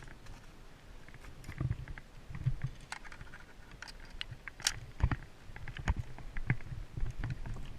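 Irregular footsteps and knocks, with scattered sharp clicks and crackles, from a player moving on foot. One crisp click about four and a half seconds in is the loudest high sound.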